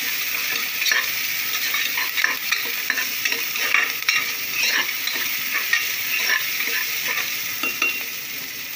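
Sliced onions and green chillies sizzling in hot sesame oil in an aluminium pressure cooker as they are sautéed, with a spoon scraping and tapping irregularly against the pot.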